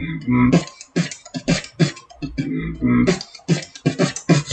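Beatboxing: a quick rhythm of sharp clicks and hits mixed with held, low hummed bass notes.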